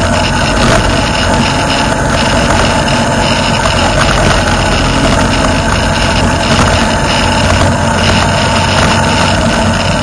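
Motorcycle engine running steadily at cruising speed, heard from on the moving bike, mixed with a constant rush of wind and road noise.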